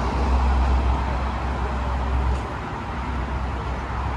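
Road noise from a car driving on an expressway: a steady tyre hiss with a strong low rumble that eases a little over two seconds in.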